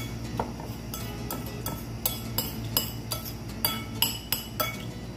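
Metal spoon clinking and scraping against a ceramic bowl while scooping food: a dozen or so sharp clinks with a brief ringing, about three a second.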